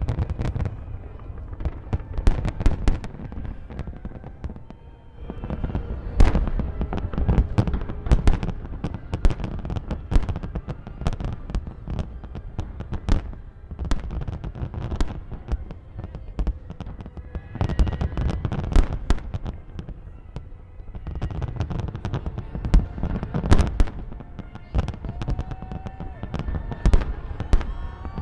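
Fireworks display: a rapid, continuous barrage of aerial shell bursts and crackles over a deep booming rumble, coming in waves that ease off briefly about four seconds in and again around twenty seconds.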